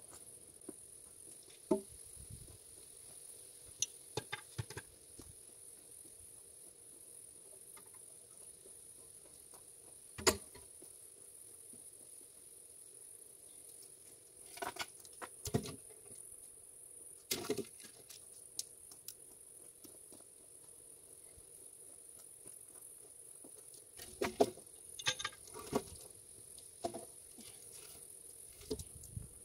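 Insects chirring steadily in a high, even drone, with scattered sharp knocks and taps, the loudest about ten seconds in and a cluster near the end.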